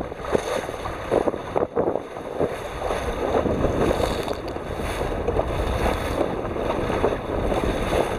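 Water rushing and splashing along the hull of a Core Sound 17 sailboat driving through chop on a reach, with spray coming over the bow and wind buffeting the microphone.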